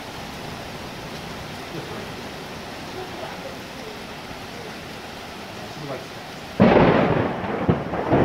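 Steady rain. About six and a half seconds in, a sudden loud thunderclap breaks in and rolls on, swelling again near the end.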